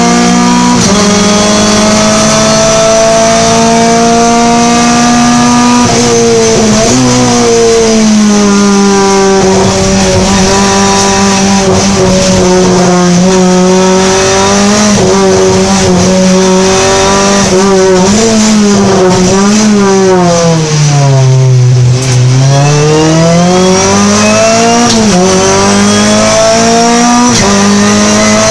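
Renault Clio Cup race car's four-cylinder engine heard from inside the cockpit under racing load. The pitch climbs slowly and drops at an upshift about six seconds in, holds fairly steady, then falls through a run of quick downshift blips to a low point about two-thirds of the way through before climbing again through another shift.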